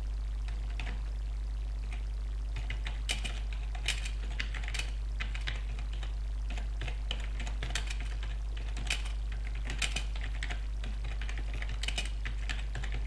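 Typing on a computer keyboard: irregular keystroke clicks, coming thicker from about two and a half seconds in, over a steady low hum.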